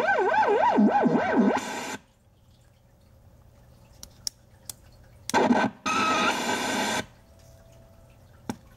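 Circuit-bent talking plush toy's sound chip glitching: warbling, swooping pitch-bent electronic sound that cuts off abruptly about two seconds in, a few sharp clicks, then a second burst of dense distorted noise about five seconds in that stops just as suddenly.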